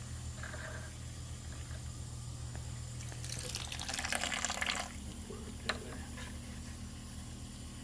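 Water hissing and spurting from an opened reverse osmosis line as trapped air is bled out of the system, loudest for about two seconds in the middle, over a steady low hum. A sharp click follows shortly after.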